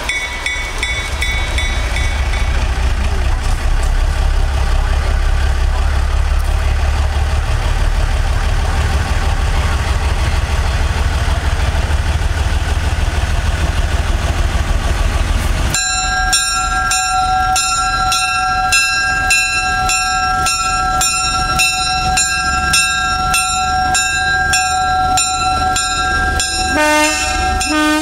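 Small diesel locomotive US Army 7751 running close by with a heavy low engine rumble. About halfway through, its locomotive bell starts ringing in quick, even strokes, about two a second.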